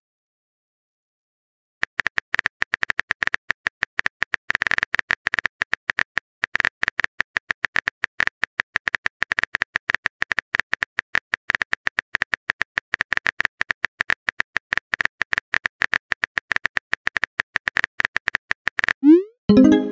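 Smartphone keyboard typing sound effect from a chat-story app: a long run of quick, even key clicks, several a second, as a message is typed. Near the end a short rising chime sounds as the message is sent.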